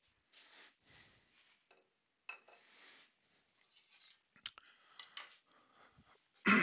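Soft handling noises of wooden spindle pieces being rubbed, turned over and set down on a metal bandsaw table, with scattered light clicks and taps and one louder knock right at the end. The bandsaw is not running.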